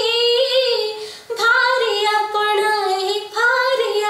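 A woman singing a modern Odia song (adhunik geet) solo with no accompaniment. She holds long, slightly wavering notes with small turns at the ends of phrases, and takes a short breath about a second in.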